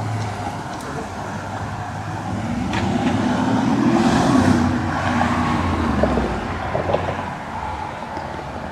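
A motor vehicle passing by on a city street: engine and tyre noise swell to a peak about four seconds in, then fade.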